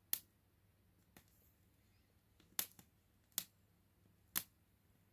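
Nordmann fir branches smouldering on a bed of embers, giving off sharp irregular crackles and pops, about six in five seconds. The branches are still slightly damp.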